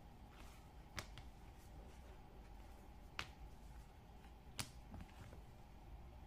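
Cut pieces of pull-up leather being handled and set down on a cutting mat: faint rustling with a few sharp light taps.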